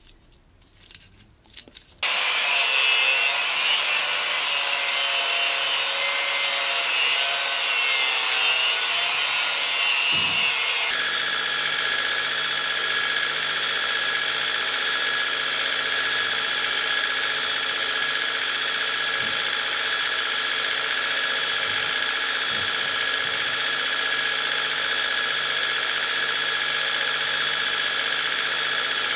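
Faint handling noise of silver wire being wound onto a sword grip. About two seconds in, a belt grinder starts a loud, continuous run, grinding a small steel part against its contact wheel. The pitch wavers at first, then holds steady from about eleven seconds in.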